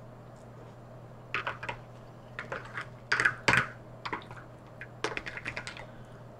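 A fork clicking and scraping against a plastic takeout container, in irregular clusters of small sharp clicks, the loudest a little past the middle.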